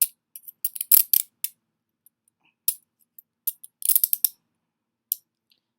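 Peerless Model 300 steel handcuffs clicking and clinking as they are worked by hand: quick clusters of sharp metallic clicks about a second in and again near four seconds, with single clicks between. The cuffs are stiff and due for maintenance.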